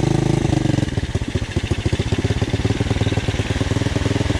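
Pit bike's small single-cylinder engine running at low revs as the bike rolls slowly along. The revs rise and fall briefly at the start, then stay steady.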